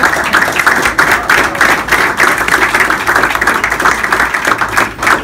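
A small group of people applauding, many hand claps overlapping.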